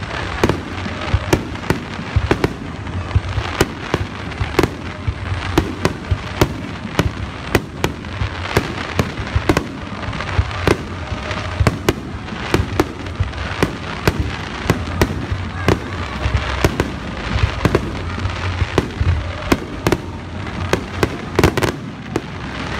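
Aerial firework shells bursting in quick succession: many sharp bangs, a few a second and irregular, over a steady rumble that fills the gaps between them.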